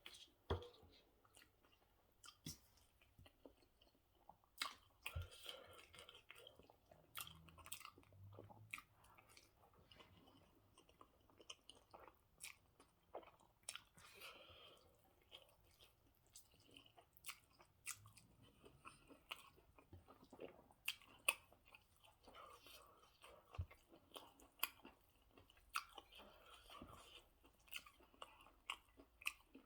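Close-miked chewing and mouth smacking while eating rice and goat stew, with frequent irregular sharp wet clicks.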